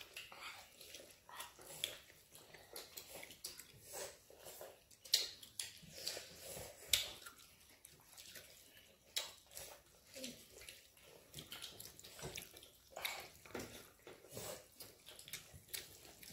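People eating rice and curry with their fingers from steel plates: quiet, irregular wet squishing, smacking and clicking from hands and mouths.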